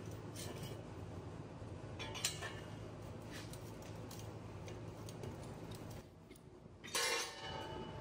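Faint clinks, taps and scrapes of sheet metal being bent and handled by hand on a steel table, over a steady low hum that stops about six seconds in. A brief louder metallic clatter follows near the end.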